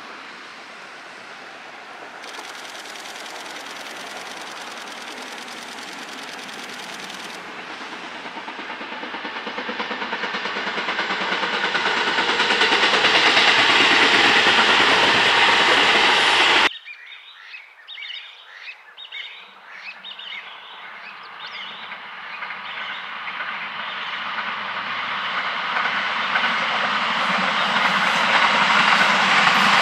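JR East E653-1000 series electric multiple unit running past, its noise building steadily to a peak a little past halfway and then cutting off suddenly. A second pass follows, starting quieter with a few light clicks and building again.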